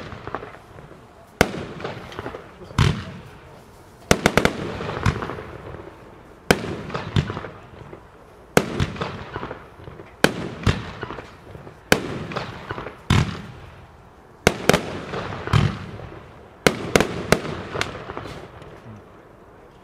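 Consumer New Year's fireworks going off: a string of sharp bangs every second or two, each trailing off in a brief crackle, some in quick clusters of several.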